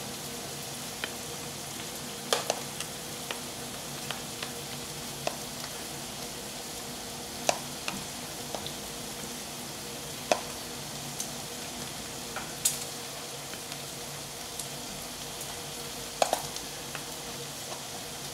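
Metal spoon tapping and scraping against a plastic tub as strawberries are spooned out, in scattered sharp clicks every second or two over a steady hiss and faint hum.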